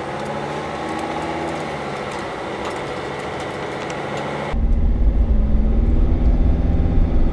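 2005 Mercedes Sprinter's five-cylinder diesel engine running as the van drives, heard from inside the cab while a failed fuel quantity valve (open circuit) is costing it power. About four and a half seconds in the sound switches abruptly to a louder, deeper rumble.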